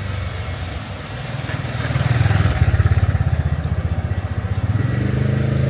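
A motorcycle engine running close by with a fast, low throb, growing louder about two seconds in and stopping suddenly at the end.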